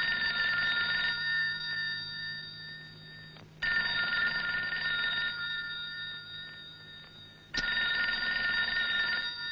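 Desk telephone ringing: three rings about four seconds apart, each starting loud and fading away before the next.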